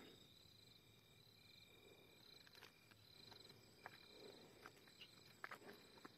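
Near silence with the faint, repeated pulsed chirping of crickets, and a few soft taps of footsteps on a dirt track in the second half.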